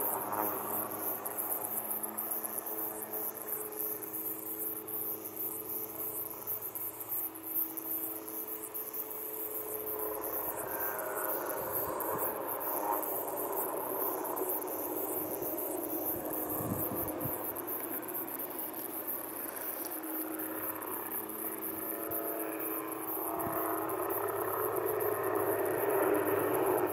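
Insects chirring steadily in a high, rapidly pulsing drone. A faint helicopter hum underneath grows louder over the last few seconds.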